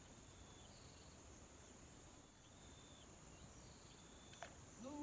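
Faint insects chirring in the background: a steady high buzz with a regular pulsing above it. A short falling whistle comes near the end.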